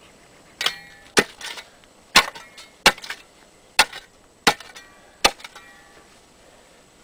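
Steel shovel blade jabbed down into hard caliche in a planting hole: seven sharp strikes about a second apart, some with a brief metallic ring, each followed by a short clatter of loosened soil and rock.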